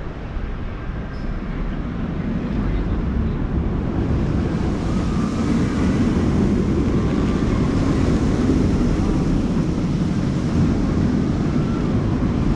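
Steel roller coaster train rumbling along its track, growing louder over the first few seconds and then holding at a steady rumble.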